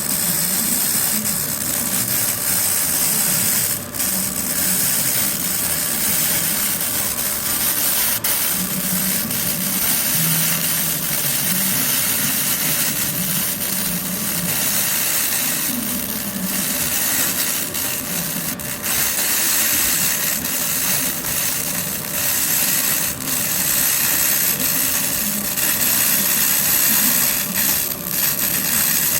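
200 W pulsed laser cleaner ablating hardened oil film off a grinder's metal surface: a steady, loud hiss, strongest in the high range, over a constant low machine hum, with a brief break about four seconds in.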